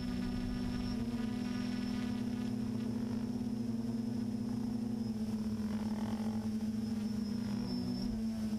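Multirotor drone's motors and propellers buzzing steadily in flight, heard from the drone's own onboard camera. The pitch wavers slightly as the motors change speed.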